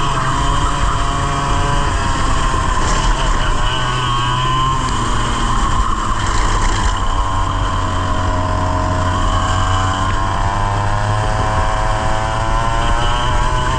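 100cc kart engine heard from on board, its revs dropping and climbing again several times as the kart brakes into corners and accelerates out.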